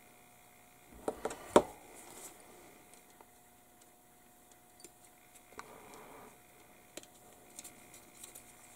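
Hard plastic model-kit sprue being handled: three sharp clacks in quick succession about a second in, the last the loudest, then a few light ticks.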